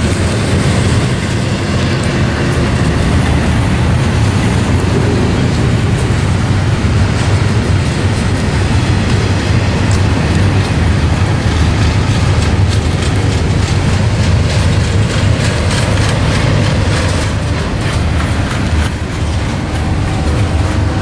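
Long, heavy freight train's cars rolling past close by: a steady loud rumble of wheels on rail, with rapid clicking over the rail joints through the middle of the passage.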